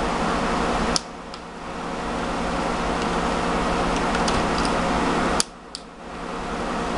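A few sharp plastic snaps as the laptop screen bezel's clips are pried loose, one about a second in and a pair near the end. A steady hiss swells between the snaps and drops abruptly at each one.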